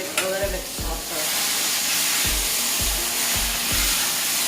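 A hot pan of dal and spices frying in ghee gives a loud steam hiss that starts suddenly about a second in and cuts off near the end, typical of water being poured into the hot pan. Background music with a low beat plays underneath.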